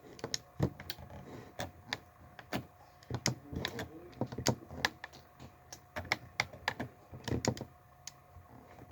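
Close-up eating sounds: chewing and mouth clicks from someone eating a Subway sub, irregular sharp clicks with a few soft low thuds.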